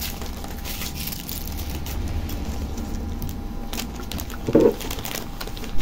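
Quiet handling sounds of a drinking straw being unwrapped and put into a glass cola bottle, with faint crinkling, over a low steady rumble; one brief louder sound about four and a half seconds in.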